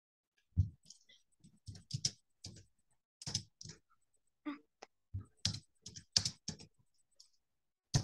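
Computer keyboard being typed on: irregular keystrokes, a few a second, with short pauses between runs, as letter answers are typed into a message.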